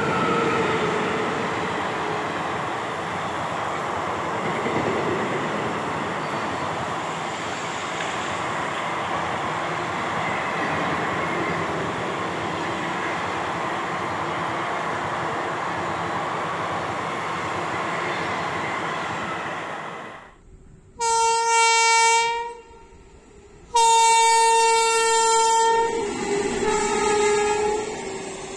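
Indian Railways express train passing at speed: a steady rush of wheels and coaches on the rails for about twenty seconds. After a cut, an electric locomotive's horn sounds two long blasts, then a third at a slightly lower pitch near the end.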